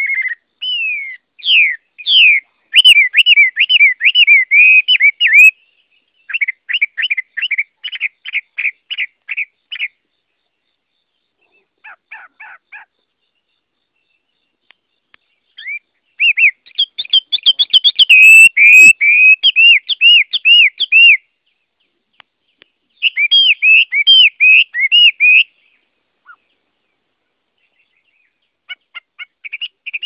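Chinese hwamei (Garrulax canorus) singing: loud phrases of fast, repeated, slurred whistled notes that rise and fall. The phrases are broken by short pauses, with a longer gap of about three seconds near the end before the song starts again.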